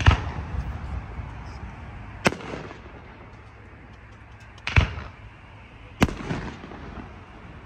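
Fireworks going off: four sharp bangs spaced a little over a second to two and a half seconds apart, some followed by a short crackle.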